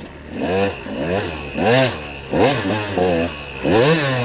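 KTM 200 XC-W two-stroke single-cylinder dirt bike engine revving hard in short throttle bursts, its pitch rising and falling about five or six times, as the bike is worked over log obstacles.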